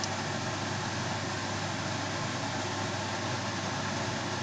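Steady hiss with a low hum from a lidded pot simmering on the stove.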